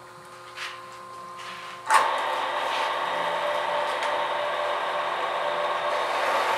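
Horizontal metal-cutting band saw switched on with a sharp click about two seconds in, then running steadily with a loud, even motor and blade hum. Before that, only a faint steady hum is heard.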